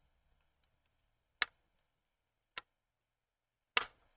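Knitting needles clicking against each other as stitches are worked: three sharp clicks a little over a second apart.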